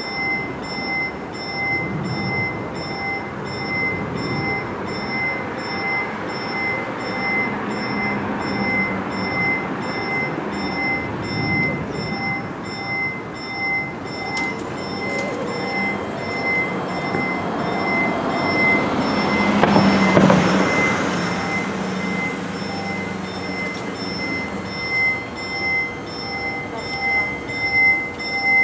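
Italian TM2000 level crossing's electronic warning bells ringing, a high ding repeated in a rapid steady pulse that starts the moment the crossing activates. Road traffic passes underneath, swelling loudest about two-thirds of the way through as a vehicle goes by close.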